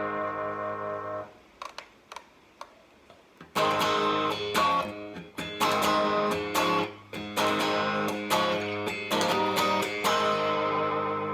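Partscaster electric guitar through an amp's crunch channel, with a mild overdrive. A held chord is cut off about a second in, then after a short pause comes a run of choppy strummed chords with sharp muted stops, ending on a ringing chord.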